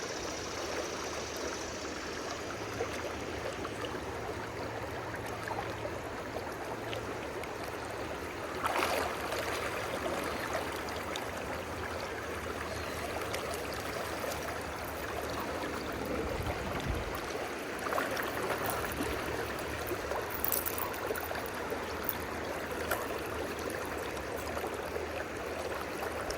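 A river running steadily, an even rushing of flowing water. A few brief knocks or scrapes come through it partway along.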